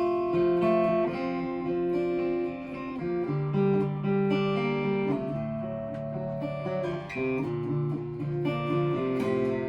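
Acoustic guitar being played, chords strummed and left to ring, changing every second or so.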